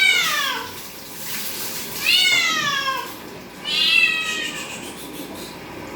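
A domestic cat meowing loudly three times, each call rising then falling in pitch, in distress at being bathed in the shower.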